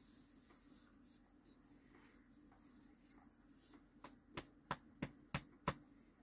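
A hand patting a belly: about six quick slaps, roughly three a second and growing louder, starting about two-thirds of the way in, over quiet room tone.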